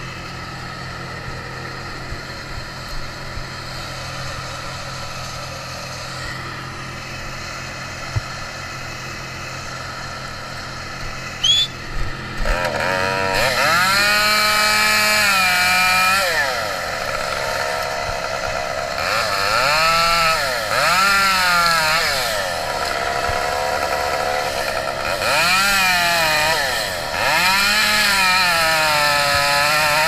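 A steady engine hum, then from about twelve seconds in a two-stroke chainsaw run in about six bursts, its pitch rising and dropping with each one.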